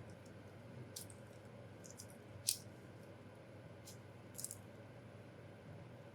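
Faint, sharp metal clicks from the stainless steel bracelet's folding safety clasp as it is worked open and shut. There are about half a dozen short clicks, the loudest about two and a half seconds in.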